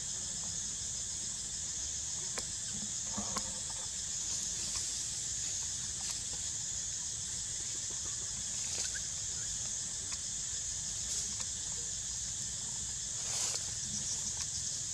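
Steady high-pitched insect chorus with a fine, fast pulsing, with a few faint clicks and rustles over it.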